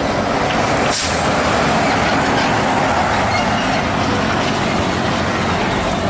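Hino diesel tanker truck driving past on a highway: steady engine and tyre noise, with a short hiss about a second in.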